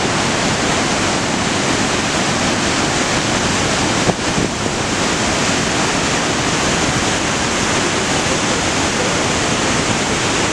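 The Rhine Falls, a large river waterfall, pouring over its rocks: a loud, steady rush of falling and churning water.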